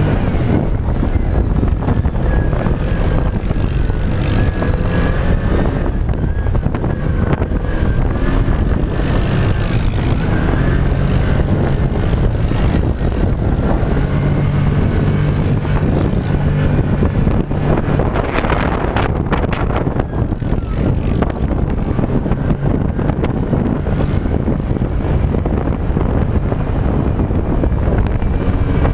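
Off-road dune buggy's engine running steadily as it drives over desert sand, its note shifting a little with the throttle. A louder rush of noise comes a little past halfway.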